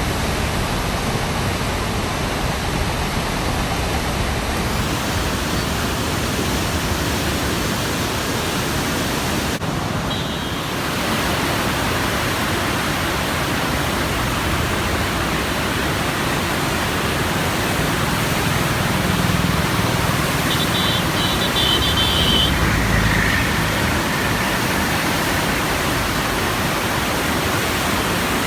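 Heavy floodwater pouring through the open gates of the Krishna barrage: a loud, steady rush. About two-thirds of the way through, a low rumble swells for a few seconds.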